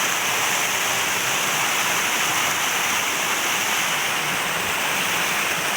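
Steady rush of flowing river water, an even hiss at constant level.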